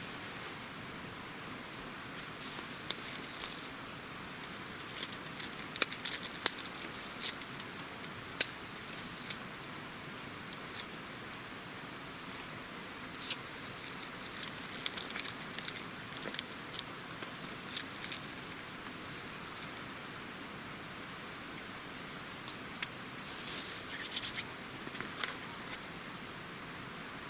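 Steady hiss of light rain, with scattered sharp clicks and taps that come in clusters about 3, 6 and 24 seconds in.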